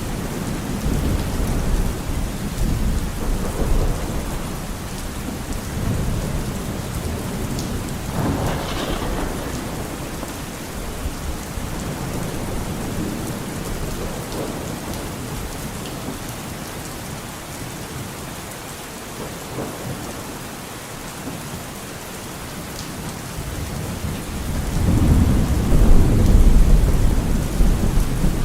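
Steady heavy rain falling, with rolls of thunder rumbling low under it; a long thunder roll swells up near the end and is the loudest part.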